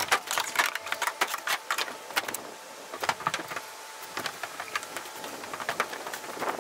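Quick metal clicks and scrapes as a pry bar works a marine hatch's frame loose from a school bus's metal roof, then the scratchy strokes of a broom sweeping drilled metal shavings off the roof near the end.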